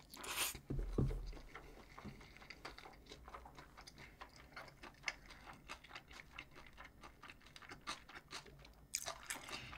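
A person chewing food: soft chewing with many small wet mouth clicks, after a short crunchy bite at the start and a low thump about a second in.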